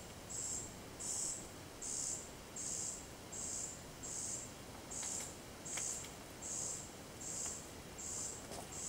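Common cuckoo fledgling begging: a high, hissing call repeated steadily, about one every three-quarters of a second.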